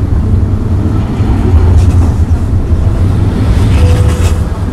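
A steady low rumble of a vehicle running, from a street-traffic ambience added to the footage, with two brief hissy swells partway through.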